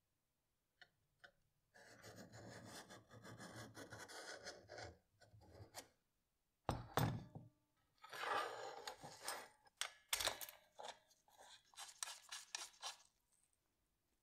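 Steel knife blank being handled and clamped into an aluminium edge-grinding jig: metal sliding and scraping on metal, a sharp knock about seven seconds in, then a run of quick clicks and scrapes as the clamp is set.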